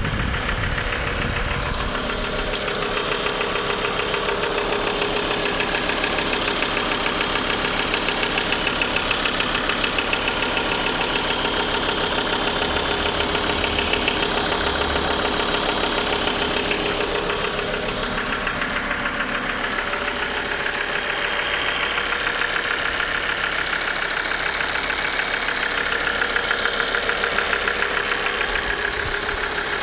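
Car engine idling steadily with a rapid ticking knock. The uploader traces the noise to faulty injectors and a failing oil pump.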